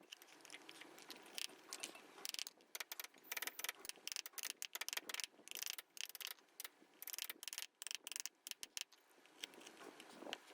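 Hand carving tools cutting into wood: a quick, irregular run of short scraping clicks, some in close clusters, with brief pauses between strokes.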